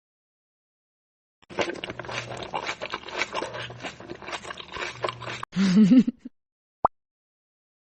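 Close, crunchy chewing of food for about four seconds, followed by a short low vocal grunt and a single sharp click.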